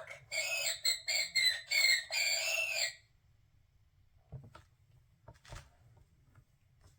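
Electronic skunk sound effect from a children's button sound book, played through its small speaker: a high, warbling call in several short pieces, rising and falling in pitch, lasting about three seconds. Two faint clicks follow a little later.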